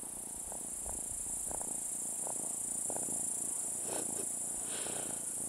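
A calico cat purring close to the microphone, in a soft rhythmic pulse with each breath, over a constant high chirring of grasshoppers.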